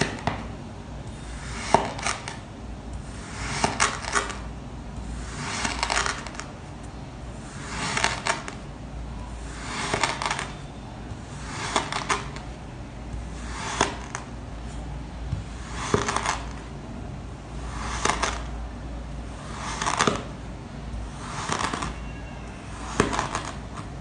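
Knife slicing through packed kinetic sand, about a dozen cuts at an even pace of one every two seconds or so. Each cut is a short gritty crunch of the sand with a sharp tap of the blade.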